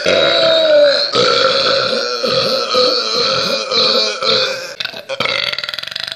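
Loud, long drawn-out burps from a person, croaking with a steady pitch. One belch breaks off about a second in and another long one follows. Near the end a burp turns into a rattling flutter.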